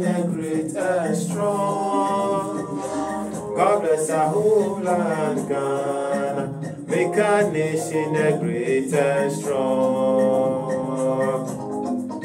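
A man singing a song into a studio microphone, with long held notes about two seconds in and again near the end.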